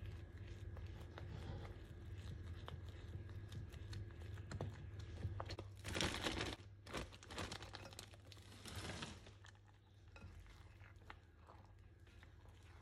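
A plastic bag crinkling as blueberries are tipped out of it into a bowl of batter: a short loud burst about six seconds in, then a longer one of about two seconds. Before and after, a silicone spatula scrapes softly through the batter in a glass bowl.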